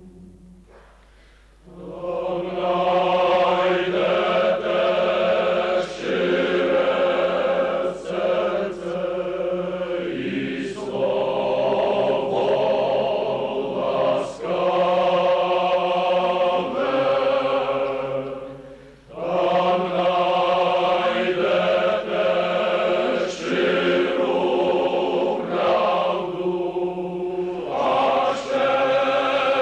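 Choral singing in slow, sustained chords, coming in about two seconds in, with brief breaks between long phrases.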